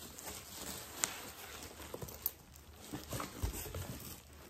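Tissue paper rustling with scattered light clicks and taps as a purse with gold chain straps is handled in a cardboard box.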